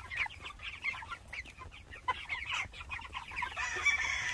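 A small flock of young chickens clucking and peeping, with many short, falling calls overlapping one another. The calls grow louder and harsher near the end.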